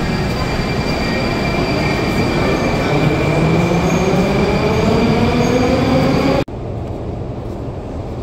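Moscow metro train accelerating out of a station, its motor whine rising in pitch over a few seconds above a loud rumble of wheels. The sound cuts off abruptly about six and a half seconds in, giving way to a quieter steady station hum.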